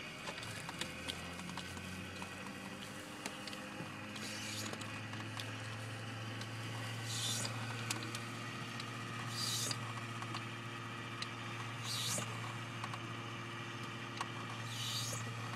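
Piper Archer II cockpit being readied for engine start: a steady electric hum comes on about four seconds in. Over it come four short hisses, two to three seconds apart, and a few light clicks from the controls.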